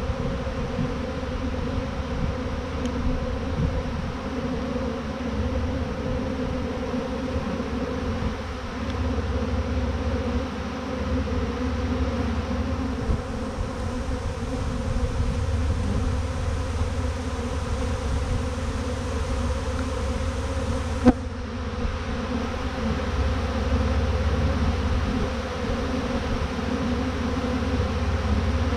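A large honeybee swarm buzzing steadily, with thousands of bees in the air as the swarm clusters. One sharp click sounds about two-thirds of the way through.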